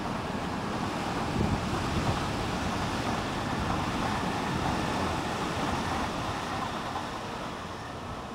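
Electric multiple-unit train passing close by, its running and wheel-on-rail noise swelling about a second in and fading toward the end.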